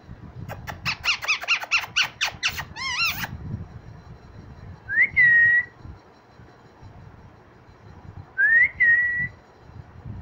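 Young green parakeet chicks calling: a fast run of squeaky chirps, about four a second, for the first few seconds. Later come two loud whistles, each rising and then held on one steady note.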